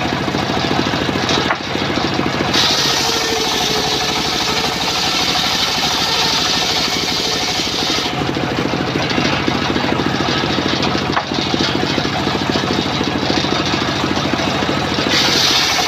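Homemade engine-driven table circular saw ripping timber into rafters. The engine runs steadily throughout. The blade's cutting noise rises to a loud, high rasp as a board is fed through, from about two and a half seconds in to about eight seconds, and again near the end.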